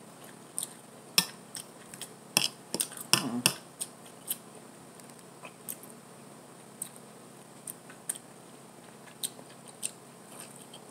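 Metal fork clicking and scraping against a plate while food is picked up, in scattered short taps with a busier run of clinks a second or two in.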